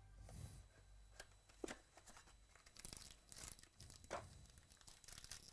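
Faint crinkling and tearing of trading-card packaging as a box of baseball cards is opened, with scattered small sharp ticks about one, one and a half, three and four seconds in.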